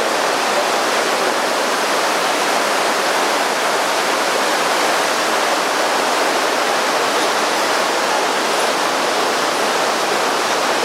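Steady rushing noise from riding the open cave tourist train through the tunnels: a continuous even roar of air and running gear, with no breaks or changes.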